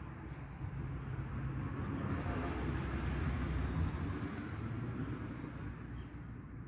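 A vehicle driving past, its noise swelling to a peak about three to four seconds in and then fading.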